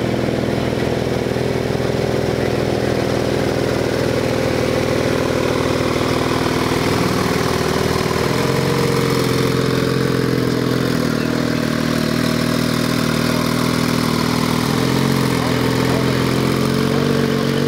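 Porsche 911 Turbo's twin-turbocharged flat-six idling steadily, heard from close behind the exhaust outlets.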